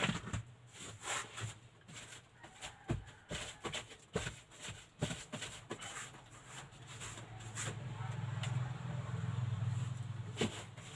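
Brushing and wiping inside a van's cabin: an irregular run of short scratchy strokes and small knocks. A low steady hum comes up about two-thirds of the way in and fades near the end.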